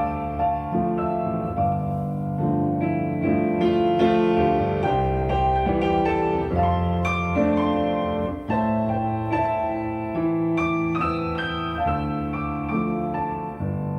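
Instrumental piano music: a continuous flow of melody and chords over deep bass notes.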